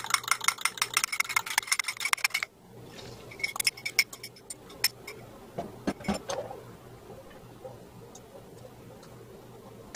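Fork beating a raw egg in a ceramic cup, rapid clinking against the cup's sides that stops suddenly about two and a half seconds in. Then a few scattered clinks as the egg is poured into a stainless steel skillet and stirred with the fork.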